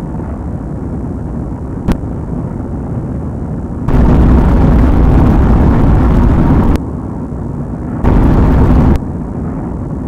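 Steady low rumble with loud stretches of rushing noise that switch on and off abruptly: one about three seconds long starting four seconds in, and a shorter one near the end. A single click comes about two seconds in.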